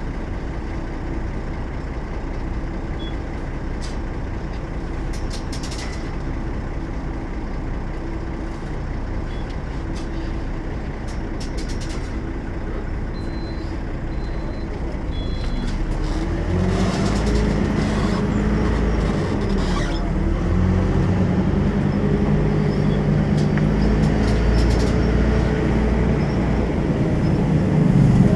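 Volvo B12M bus's 340 hp 12-litre six-cylinder diesel engine running steadily at first. From about halfway it pulls harder and louder, its pitch rising and dropping back three times as the bus accelerates through the gears of its ZF gearbox. A few short high beeps come just before the middle.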